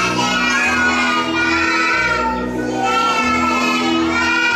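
Young children singing together over backing music with steady, sustained bass notes that change about once a second.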